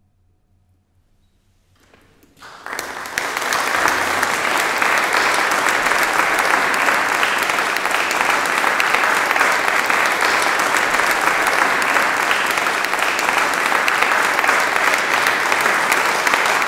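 Applause: after about two seconds of near silence it breaks out and holds as dense, steady clapping.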